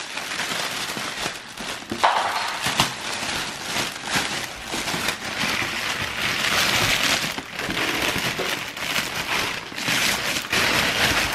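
Clear plastic poly bag crinkling and crackling around a wrapped backpack as it is handled and pulled out of a cardboard shipping box, with sharp crackles throughout and louder spells about six to seven seconds in and again near the end.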